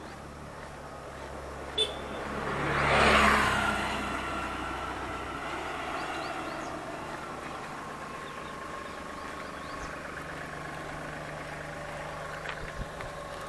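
A motor vehicle passes close by, its engine and tyre noise swelling to a peak about three seconds in and fading away. After it, a small motorcycle engine hums steadily as it approaches along the road.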